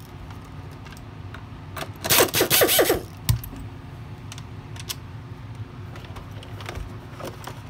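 Pistol-grip air screwdriver spinning a Phillips screw out of a plastic vacuum housing for about a second, with a hiss and a wavering whine, a couple of seconds in. A knock follows, then small clicks of loose screws being handled.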